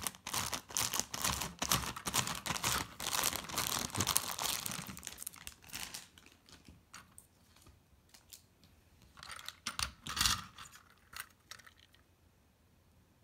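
Clear plastic bag crinkling and rustling as a plastic toy train is pulled out of it, with scattered sharp clicks of the plastic cars being handled. The crinkling thins out after about six seconds, and a second short burst of rustling comes about ten seconds in.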